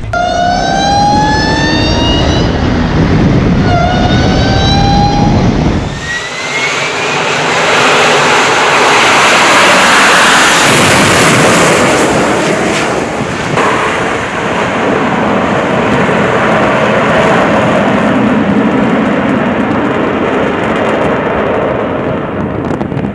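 Military jet engine: a rising whine spooling up over the first few seconds, then a loud, steady roar of a jet taking off.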